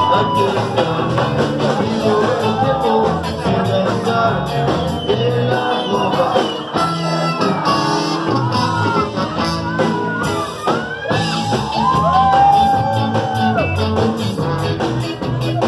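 Live rock band with a horn section playing loud: electric guitar, bass, drums and horns, with a melodic line, likely the saxophone, bending and gliding above the band in the middle, heard from within the club crowd.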